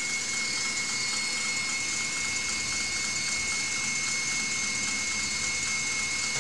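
Electric mixer running at full speed, beating eggs and yolks: a steady whirring with a constant high whine over it.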